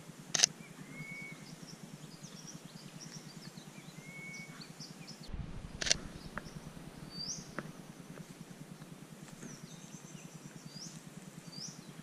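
Small birds calling in the bush: scattered short chirps and quick hooked, rising whistled notes, among them a golden whistler. Two sharp clicks cut through, about half a second in and again near the middle, the second after a brief low rumble.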